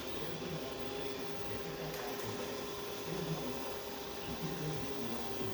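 Roborock S6 Pure robot vacuum moving on its way back to its dock, running with a steady whine and an uneven low rumbling under it. This is the abnormal loud noise the unit makes while moving, which its owner hears during docking as well.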